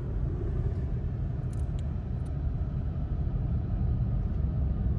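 Steady low rumble of a car driving, heard from inside the car: engine and tyre noise at an even pace.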